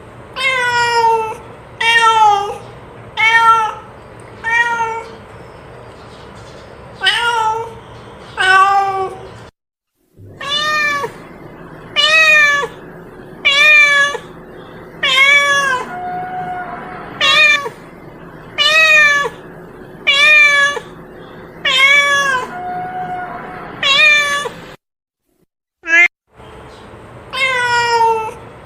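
Domestic cat meowing over and over, a short pitched meow about every second and a half, each falling in pitch at the end; the sound cuts out abruptly twice. The uploader takes it for a hungry cat calling to its companion.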